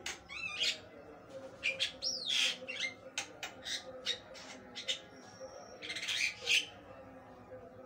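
Javan myna (jalak kebo) in full song: a quick, varied run of harsh squawks and chatters mixed with whistled glides and one held high whistle, with a loud harsh call near the end.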